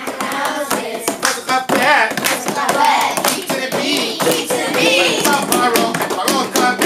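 A class of children singing Hebrew Torah verses together while clapping and tapping on their desks, a quick run of sharp claps and taps keeping the beat under the singing.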